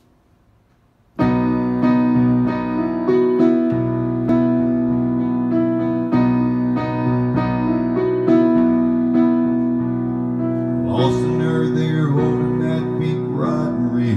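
Solo digital stage piano playing a slow song intro, beginning about a second in with chords struck and held in a steady pulse. A man's singing voice joins the piano near the end.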